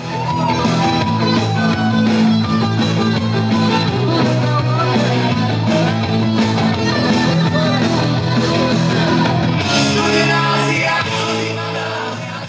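Background music: a song with singing over a steady beat. It starts abruptly and begins to fade out near the end.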